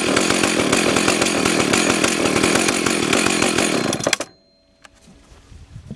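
Vintage Husqvarna 298 XP two-stroke chainsaw running steadily, then shut off: the engine cuts out suddenly about four seconds in.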